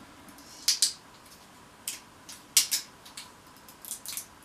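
Short, sharp clicks and rustles in about four quick groups, several of them close pairs, from a barbecue sauce bottle being handled at the table.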